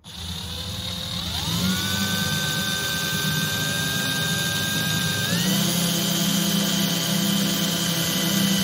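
Prescott cordless drill boring a hole through a PVC pipe end cap. The motor whine starts, rises about a second in, steps higher about five seconds in and then holds steady.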